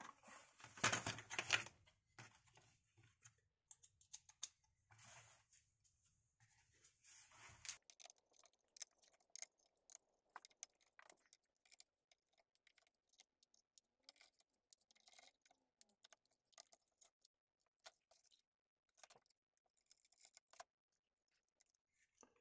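Faint small clicks and scrapes of a precision screwdriver turning the screws out of a graphics card's backplate, with louder handling rattles in the first two seconds.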